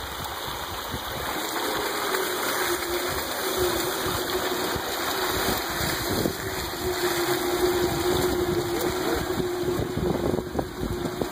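Four-wheel-drive electric Club Car golf cart, with bolt-on electric front hub motors, driving through deep mud: a steady electric motor whine over the wet churning and splashing of its mud-caked tyres.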